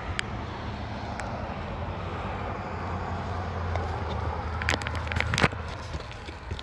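A vehicle's low engine rumble that builds and fades out about five and a half seconds in, over general outdoor hiss. Near the end come a few sharp clicks and scuffs, the loudest about five seconds in.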